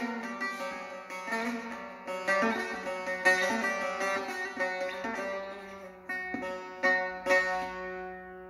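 Bağlama (Turkish long-necked saz) played solo with no singing: plucked melody notes and sharper strummed strokes over steadily ringing strings. It dies away near the end as the piece closes.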